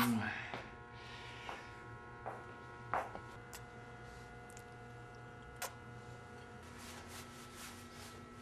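Steady electrical hum of room tone, with a few faint clicks scattered through it and a second low tone joining the hum near the end.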